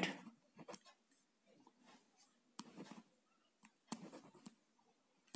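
Faint scratching of a pen writing on paper, in a few short clusters of strokes about half a second, three and four seconds in.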